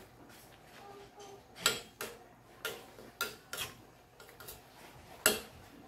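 A spoon clinking against the sides of a stainless steel soup pot while a leafy vegetable soup is stirred: about six sharp clinks at irregular intervals, the loudest about five seconds in.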